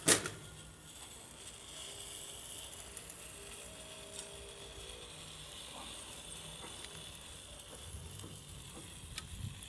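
Chicken shawarma meat on a vertical spit over hot charcoal sizzling steadily, with one sharp knock right at the start.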